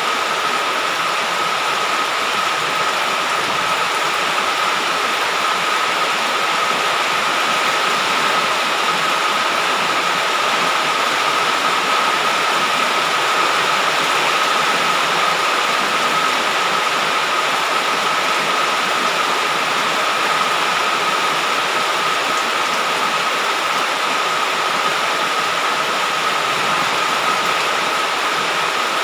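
Heavy rain pouring steadily, a dense even hiss, with a thin high whine held on one pitch throughout.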